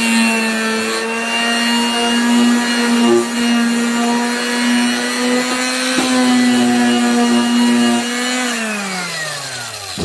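Electric quarter-sheet palm sander running steadily, its sandpaper rasping on a wooden board. Near the end it is switched off, and its motor hum falls in pitch as it winds down.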